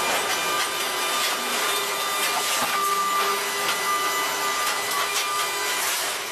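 Hydraulic scrap-car baler running: a steady hissing whine from its hydraulics, with a few faint metallic knocks.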